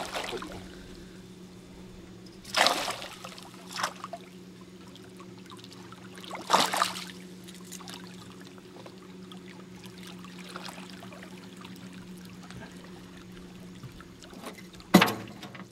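A hooked peacock bass thrashing at the water's surface: several short splashes, the sharpest near the end, over a faint steady low hum.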